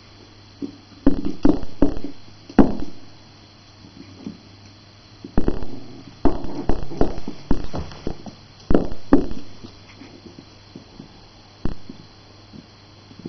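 Jack Russell puppy tussling with a knotted cotton rope toy on a wooden floor: clusters of dull thumps and scuffles as the toy and paws strike the floor, in several bouts with short lulls between.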